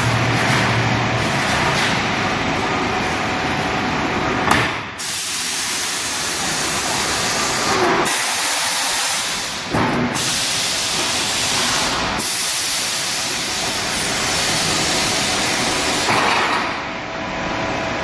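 CNC spring coiling machine running as it coils wire into a garage door spring. A steady mechanical noise runs throughout, and a high hiss switches on and off in stretches of a few seconds.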